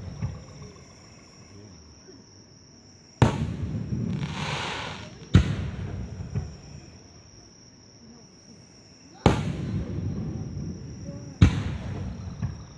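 Aerial fireworks shells bursting: four sharp booms, about 3, 5, 9 and 11 seconds in, each followed by a rolling echo, with a crackling hiss after the first. A steady high insect trill carries on underneath.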